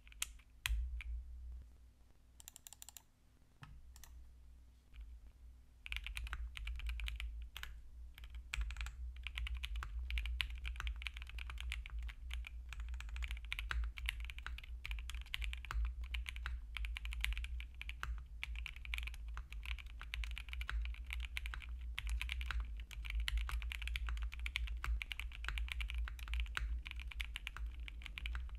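Typing on a QK60 aluminium-top mechanical keyboard with stock Emogogo Hybrid Black switches, an FR4 plate with plate foam, TX stabilizers and DMK keycaps. A few separate key presses come first, then steady fast typing from about six seconds in.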